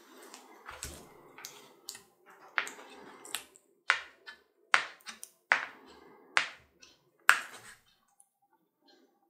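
Plastic wrapping on a graphics card crinkling and crackling as gloved hands handle and pull at it, a run of sharp crackles with rustling between them that stops about eight seconds in.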